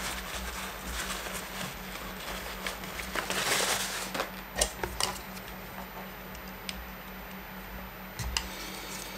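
Handling noise as battery charger leads and clamps are set on and connected to a small sealed lead-acid battery: a brief rustle about three and a half seconds in, then a few scattered sharp clicks, over a steady low hum.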